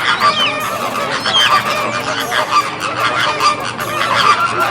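A flock of flamingos honking, many goose-like calls overlapping continuously.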